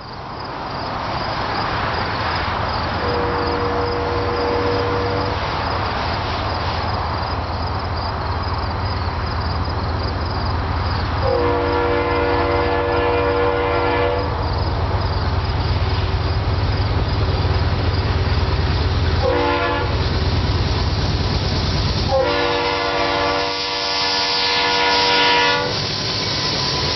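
Diesel freight locomotive horn, a multi-tone chime, sounding long, long, short, long (the standard grade-crossing signal) over the rumble of GE diesel locomotives drawing closer. The first blast is fainter than the later ones.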